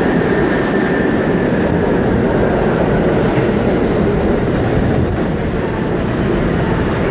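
R68 subway train pulling into the station and running past along the platform: a loud, steady rumble of steel wheels on rail. A faint high whine dies away in the first few seconds.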